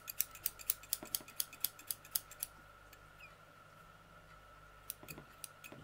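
Small stork-shaped embroidery scissors being snipped open and shut: a quick run of light clicks, about four a second, for the first two and a half seconds, then a few faint clicks near the end. The new scissors have a slightly sticky, stiff action.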